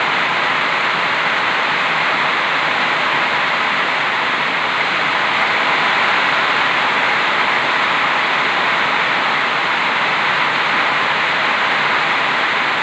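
Heavy rain falling: a loud, steady hiss of downpour that doesn't let up.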